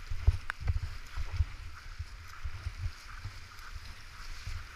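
Whitewater rushing around a Jackson Kayak Zen creek boat as it is paddled down a rapid, with paddle blades splashing in and out of the water. Irregular low thuds of water and air buffeting the helmet-mounted GoPro run under the rush.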